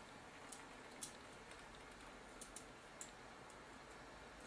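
Faint, scattered light clicks, about six of them, from a screwdriver and small metal parts on the metal mechanism of a JVC GY-HD251 camcorder tape deck as its loading motor screws are undone. Otherwise near silence.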